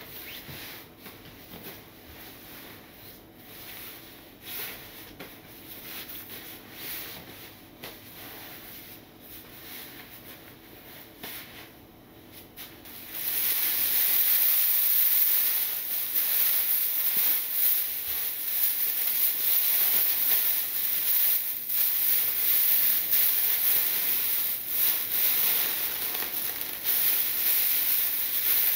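Soft rustling of a thin comforter being handled and folded. About halfway in, this gives way to a loud, continuous crinkling rustle of a thin plastic bag as the comforter is pushed into it.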